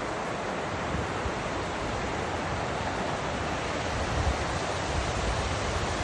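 Steady rush of water from a waterfall, with wind buffeting the microphone now and then, most of all about four seconds in.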